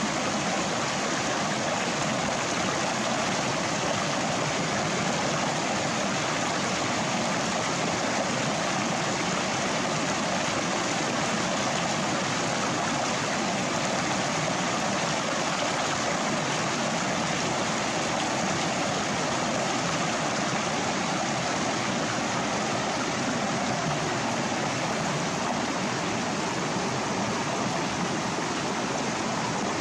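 Steady rushing of stream water, an even hiss.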